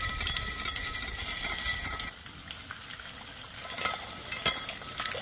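Black poly drop pipe being drawn up through the wheels of a pipe-pulling roller rig as a submersible well pump is pulled. The rollers give a faint steady high squeal over a rumble, with scattered ticks and clinks. The squeal and rumble stop about two seconds in, leaving only light clicks.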